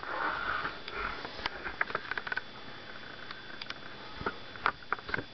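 Scattered soft clicks and taps from handling the opened plastic nightlight, over a faint steady hiss.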